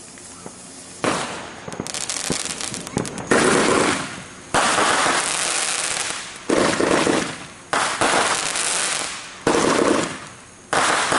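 Consumer fireworks going off: a run of about seven sudden hissing bursts, each lasting a second or so before fading, with rapid crackling about two seconds in.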